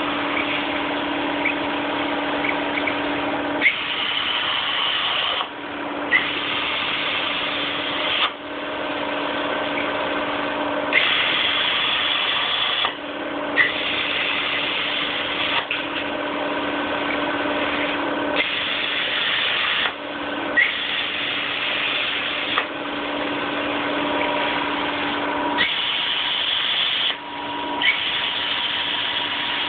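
CNC plasma cutting torch cutting steel plate: a loud, steady hiss of arc and air that stops and restarts every couple of seconds as one cut ends and the next begins, several restarts opening with a sharp crack. A steady hum runs underneath.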